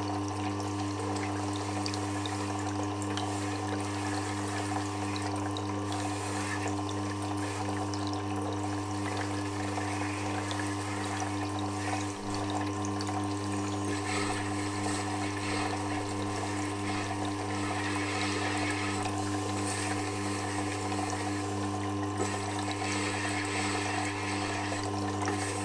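Tormek T8 sharpening machine running steadily with a low motor hum and a steady hiss as a chisel is polished on its honing wheel; the hum dips briefly about halfway through.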